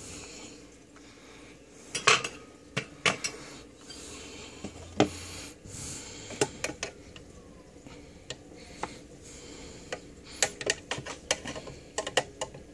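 Scattered sharp metallic clicks and taps from red-handled flush cutters working at a stray wire strand on a circuit board, with a quick run of clicks near the end.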